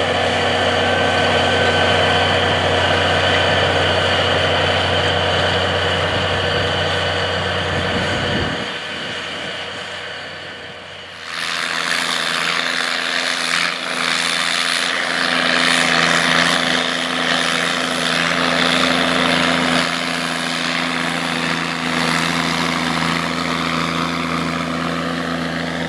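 A John Deere 8850 tractor repowered with a Cummins 855 cubic-inch six-cylinder diesel runs steadily under load, pulling a chisel plow, and fades out about 9 seconds in. About 11 seconds in, a Massey Ferguson 5200's 855 Cummins diesel takes over, running steadily while pulling a no-till grain drill.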